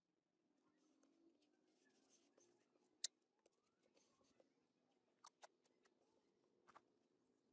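Faint rustling and crackling of masking tape and foam being pressed and rubbed under the hands, with a few sharp ticks about three seconds in and again around five seconds in.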